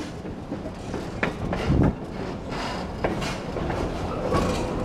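Railroad car rolling along the track: a steady rumble of wheels on rail, with a few sharp clanks and knocks from the car, about three of them in the first few seconds.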